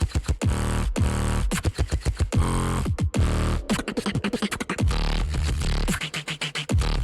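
Solo beatboxing: fast, dense mouth percussion clicks and snares over deep bass sounds that slide down in pitch again and again.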